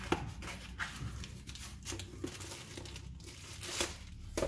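Small cardboard box being torn open and unfolded, in a string of irregular rustles, crackles and tears, with a plastic bag crinkling near the end.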